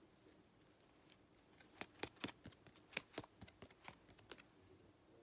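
Faint, quick run of crisp snaps and clicks as a stack of 2020 Topps Series One baseball cards is flipped through by hand, from about a second in to a little over four seconds in.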